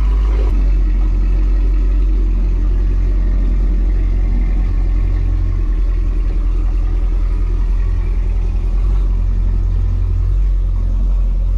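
Mercedes SL55 AMG's supercharged M113K 5.4-litre V8 idling steadily on its new tune, with a deep, even rumble.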